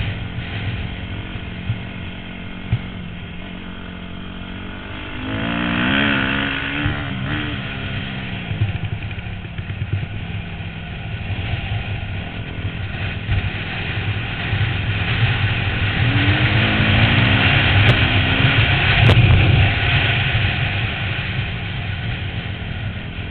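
250 dirt bike engine running under load on a flat track, heard from the rider's helmet camera. Its pitch rises and falls as the throttle is worked about five seconds in and again near the sixteen-second mark.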